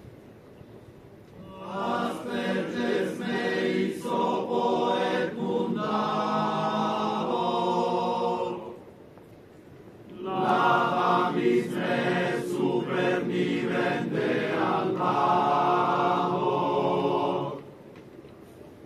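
A choir of procession members chanting a slow, solemn processional chant in unison: two long phrases of several seconds each, with a short pause between them.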